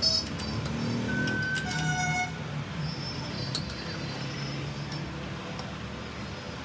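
Steady rumble of road traffic with a vehicle horn tooting briefly about a second in. Light metallic clinks of a spanner on the shock absorber's fittings come at the start and again a few seconds later.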